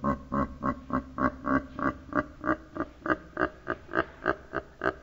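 A man's drawn-out mock evil laugh: a long, evenly paced run of 'ha' syllables, about three a second.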